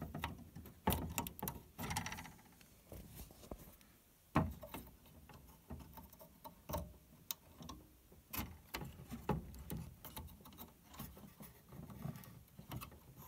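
Scattered light clicks and taps of handling, with one sharper knock about four seconds in, as a loose metal heat sink on a CRT TV's circuit board is wiggled and pulled at by hand.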